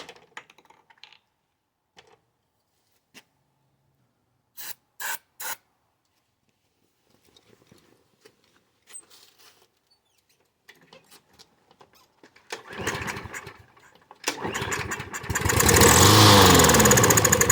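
Three short sprays of starting fluid, then a Craftsman push mower's small engine is pull-started: it sputters briefly on the first pull and catches on the second, running loudly for a few seconds with its pitch dropping near the end. It runs only on the starting fluid, which the owner takes as a sign of a clogged carburetor from sitting unused.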